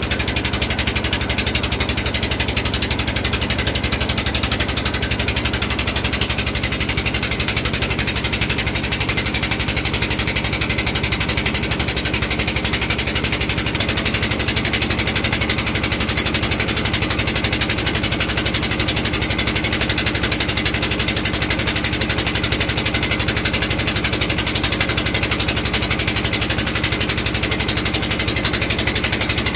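Engine of a motorized wooden passenger boat running steadily under way, a rapid, even chugging that does not change.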